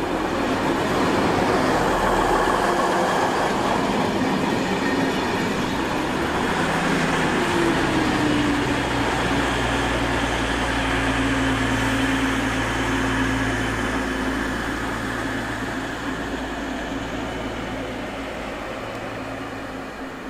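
DB Class 612 diesel multiple units: one running close past, then another pulling in and slowing, with a steady diesel drone under the running noise. The sound eases off toward the end as the train comes to a stop.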